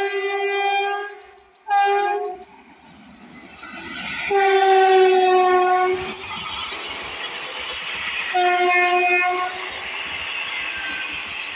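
Indian Railways WAP-4 electric locomotive's air horn sounding four blasts as the train passes: a short one, a very short one, a long loud one, then another short one. Between and under them, the rolling wheel-and-rail noise of the passing coaches.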